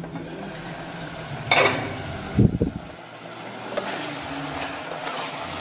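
An aluminium cooking pot's lid is lifted off with a clank about one and a half seconds in and a heavy thud a second later. Then a wooden spatula stirs beef with lemongrass and chili sizzling in the pot, with soft scraping.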